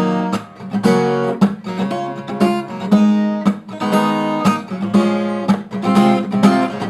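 Acoustic guitar strummed in a driving rhythm of chord strokes, some of them cut short by muting the strings with the hand.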